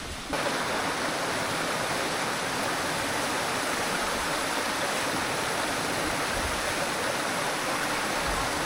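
Waterfall: a steady rush of falling water that begins abruptly just after the start and holds even throughout.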